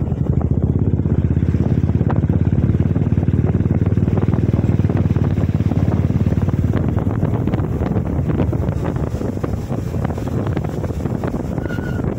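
Royal Enfield motorcycle engine running while riding, buried in heavy wind buffeting on the microphone, a dense low rumble that eases a little in the second half.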